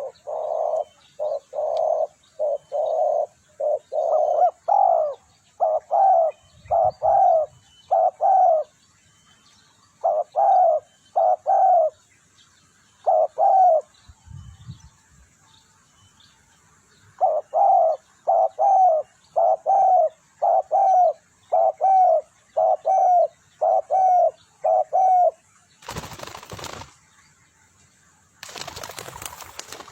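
Peacock (Indian peafowl) calling in rapid runs of short, loud, downward-curving calls, about one to two a second with brief pauses between runs. Near the end come two bursts of rushing noise.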